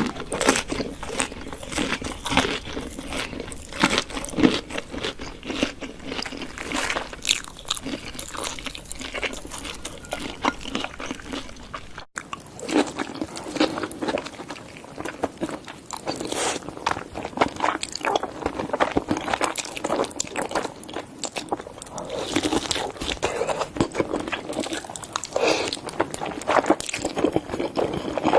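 Close-miked eating: repeated crunchy bites and chewing of crisp food, in irregular crackling strokes, with a brief break about twelve seconds in.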